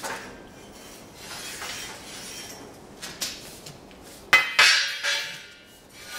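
Steel bar stock clinking and clanking against a metal storage rack as a length is pulled out, with a sharp, ringing clank about four seconds in.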